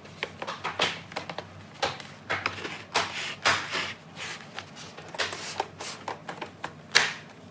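Irregular plastic clicks and rubbing as the ASUS F541U laptop's plastic case is pressed back together and closed, with one sharper click near the end.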